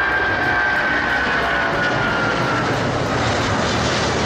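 Boeing 777 twin-jet airliner climbing out after takeoff. Its engines give a steady, loud roar, with a high whine that slowly falls in pitch over the first couple of seconds.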